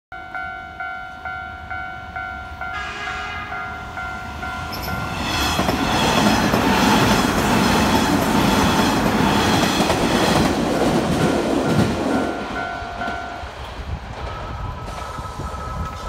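Japanese level-crossing alarm bell ringing rapidly, about twice a second, joined by a train horn as the six-car Hanshin train approaches. The train then runs through the crossing loudly with wheels clattering over the rail joints for about seven seconds. The crossing bell is heard again as the train goes by.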